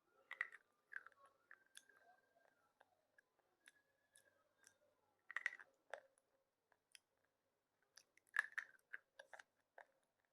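A person biting and chewing slate pencil close to the microphone: sharp crunches and clicks in clusters, the loudest about halfway through and near the end, with quiet gaps between.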